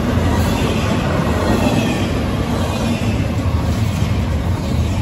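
Loaded well cars of a CSX double-stack container train rolling past close by: a loud, steady noise of steel wheels running on the rails.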